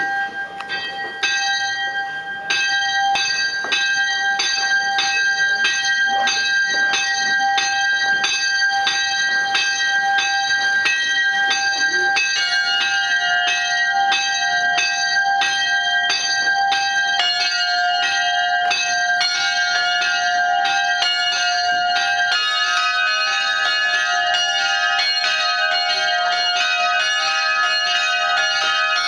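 Many church bells swinging and ringing together in a full peal, heard from inside the bell tower, their strikes overlapping in a dense, irregular clangour. Further bells join in about 2, 12, 17 and 22 seconds in, adding new lower tones each time. This is the peal ringing in a church feast day.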